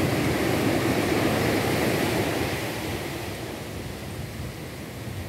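Small waves breaking and washing up a sandy beach, the wash loudest at first and dying down about three seconds in.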